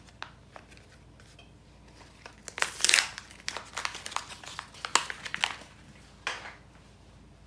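Crinkling and tearing from a roll of iron-on fusible web tape being handled and pulled off. A cluster of sharp rustles comes from about two and a half to five and a half seconds in, with one more near six seconds.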